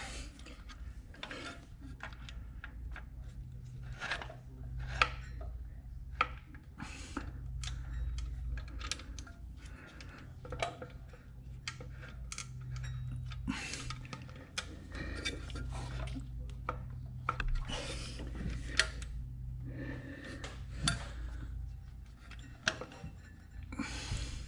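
Hand tools and metal engine parts clinking, tapping and scraping in short, irregular knocks, with a steady low hum underneath, as the alternator bracket and drive belt are fitted and tightened.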